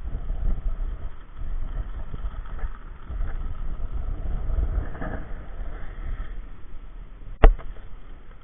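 Inline skate wheels on K2 R100 frames rolling over rough, cracked asphalt: a low, uneven rumble. One sharp click comes about seven and a half seconds in.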